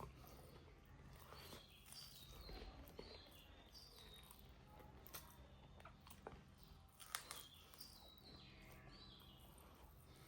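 Faint bird song: two runs of quick chirps stepping down in pitch, with a few sharp clicks between them over a steady low hum.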